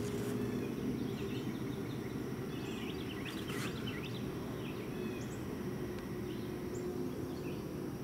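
Outdoor backyard ambience: a steady low hum with a cluster of short bird chirps about three seconds in and a few faint chirps later.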